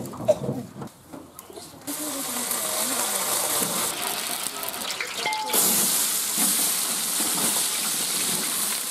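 A knock just after the start. Then cooking oil is poured in a steady stream into a large iron pan over a wood fire. About halfway through, sliced onions and garlic land in the hot oil and it breaks into a loud, steady sizzle.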